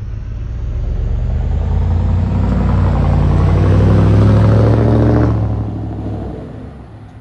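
Cammed Chevy Tahoe V8 exhaust as the truck drives past close by, growing louder to a peak about four seconds in, then fading as it pulls away.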